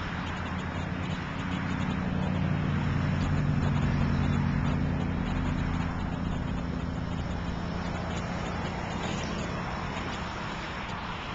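Road traffic: a passing vehicle's engine hum that rises over the first few seconds, peaks about four seconds in and fades away, over a steady background of road noise.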